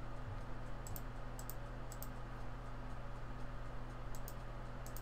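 Faint computer mouse clicks: five short clicks, several heard as quick double ticks, spaced unevenly, over a steady low electrical hum.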